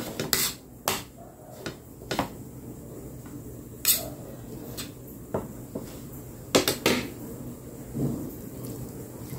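A metal spoon clinking and scraping against plates while rice is served, with a handful of short sharp clicks spread a second or two apart. The loudest clicks come a little before halfway and a pair about two thirds of the way in.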